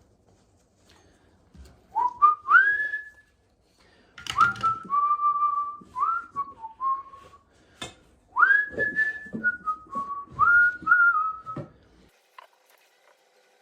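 A person whistling a tune in three short phrases, the notes sliding up into each phrase, with a few sharp clicks or knocks in between.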